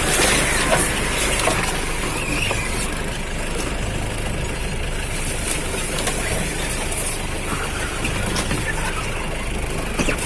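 Jeep engine running steadily on an off-road track, a low rumble with scattered knocks and rattles.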